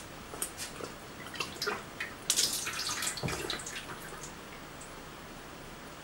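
Liquid white clay slip spurting and splattering onto the inside of a clay plate, forced out by stepping on a basketball used as a foot pump. An irregular run of wet spatters and drips, thickest between about two and a half and three and a half seconds in, dying away about four seconds in.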